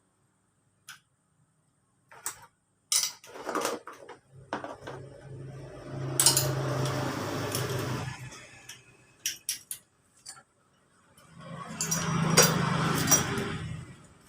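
Metal tools and engine parts clinking and knocking as they are handled during a scooter engine teardown, with two longer rattling, scraping stretches.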